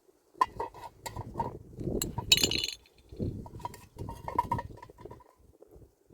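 Irregular clinking and knocking of hard objects being handled, with a brief bright rattle about two and a half seconds in.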